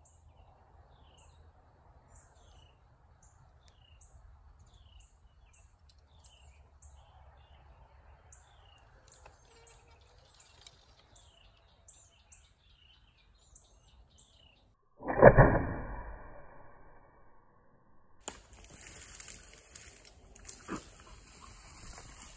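Birds chirping softly over a steady high insect tone, then about fifteen seconds in a single loud thump of a Hoyt bow being shot at a wild hog. From about eighteen seconds, loud rustling of brush and handling noise with a few sharp knocks.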